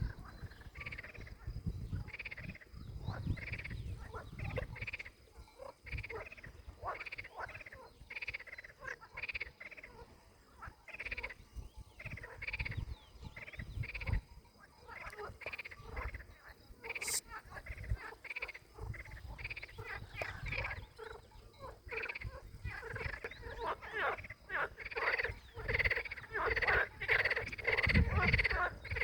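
A chorus of frogs croaking: many short calls repeated over and over, growing denser and louder near the end.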